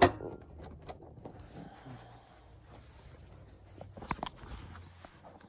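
Hands handling a large RC truck wheel and tire as it is fitted: scattered knocks and clicks of plastic and rubber, the loudest knock right at the start and another cluster about four seconds in.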